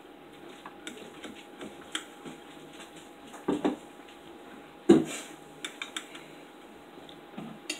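Steel knife and fork scraping and clicking against a ceramic dinner plate while steak is cut, with a louder knock a little before five seconds in.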